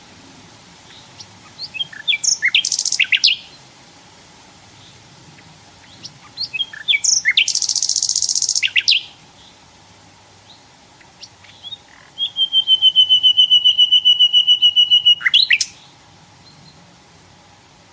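Nightingale singing in separate phrases. Two of them are quick chirps running into a fast, high buzzy trill. The third is a long run of rapid, evenly repeated notes, about nine a second for some three seconds.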